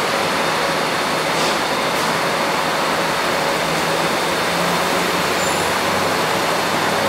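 Steady rushing noise of an elevated metro platform, with the low hum of an approaching empty MTR train faintly coming in over the last few seconds.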